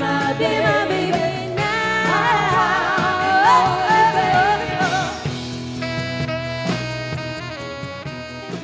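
Music: a song with singing over a band with saxophone or brass, ending in a long held chord that slowly fades.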